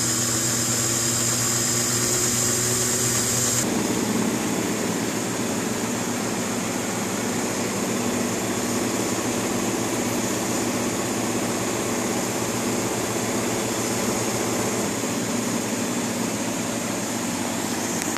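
Kenmore Elite front-load washer running a cycle with its panels off: a steady motor hum and drum rumble under a high hiss. About four seconds in the sound changes abruptly, the hiss dropping away and a rougher rumble taking over.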